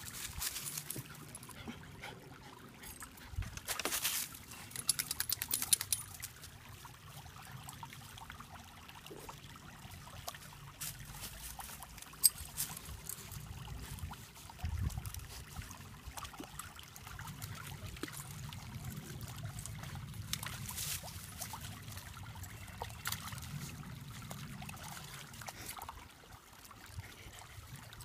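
Shallow woodland stream trickling over rocks, with bursts of splashing and crackling from puppies wading and pawing in the water and leaf litter, busiest around four to six seconds in.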